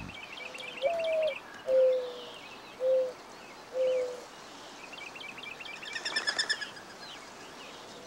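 Male mourning dove singing its courtship song: a first coo that rises and falls, followed by three lower, level coos about a second apart. Other small birds chirp and trill faintly in the background.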